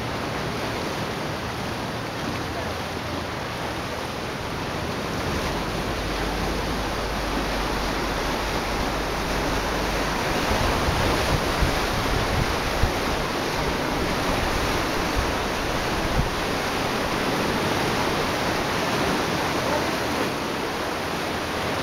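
Small waves washing against a rocky shoreline, mixed with wind on the microphone: a steady rush of noise that grows a little louder, with more low rumble, about halfway through.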